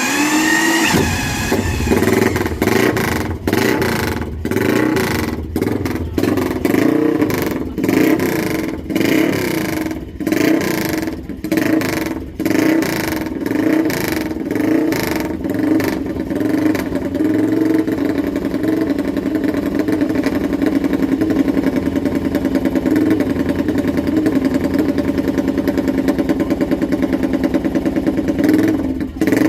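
Classic racing motorcycle engine firing up and being revved in repeated uneven throttle blips, then held at a steadier fast run from about halfway through.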